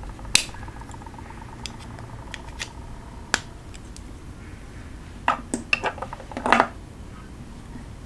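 Metal diamond-top pens being handled: scattered sharp clicks and taps against each other and the wooden table, the loudest about three seconds in, with a quick run of taps a little past halfway.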